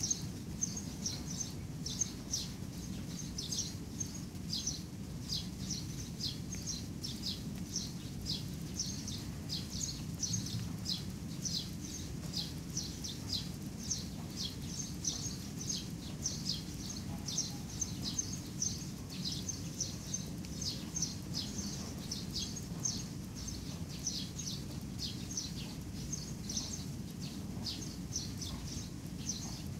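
A small bird chirping over and over, short high chirps at about two a second without a break, over a steady low rumble of background noise.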